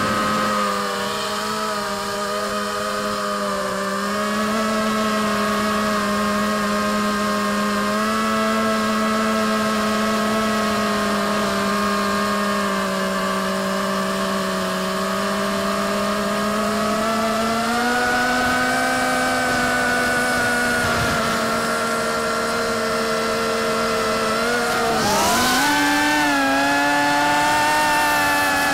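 FPV quadcopter's electric motors and propellers whining steadily, picked up close by its onboard camera. The pitch drifts with the throttle, stepping up partway through, then dipping and shooting higher about 25 seconds in with a brief rush of air noise.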